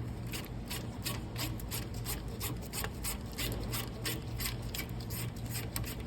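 Hand ratchet with a 17 mm socket clicking rapidly and evenly, about five or six clicks a second, as it backs out the bottom caliper bolt (slide pin) of a rear disc brake. A steady low hum runs beneath.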